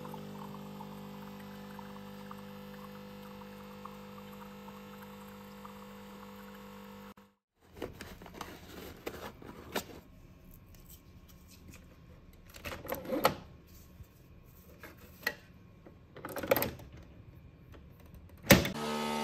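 Capsule coffee machine's pump humming steadily as it dispenses into a mug, really noisy, for about seven seconds before stopping. Then rustling and small clicks as a tea capsule is taken from its cardboard box and handled, ending with one sharp loud click as the machine's lever is closed.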